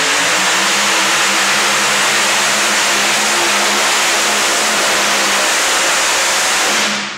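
Supercharged, alcohol-burning engine of a modified 4x4 pulling truck at full throttle, dragging a weight-transfer sled; a loud, steady engine note that cuts off sharply near the end.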